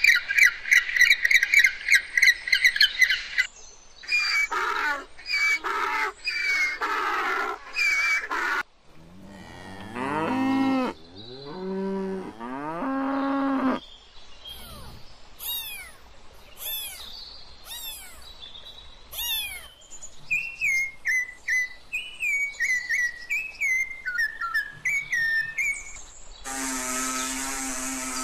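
A string of different animal calls one after another: fast, high pulsing calls, then repeated harmonic calls, low drawn-out arching calls and quick falling chirps. Near the end, the steady buzzing of a swarm of paper wasps around their nest.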